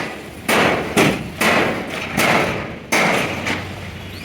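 Hammer blows on metal: six strikes in about three seconds at an uneven pace, each ringing briefly.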